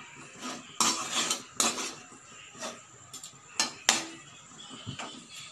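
Metal spatula clanking and scraping against a steel kadai while stir-fried noodles are tossed, with a sharp clank about every second.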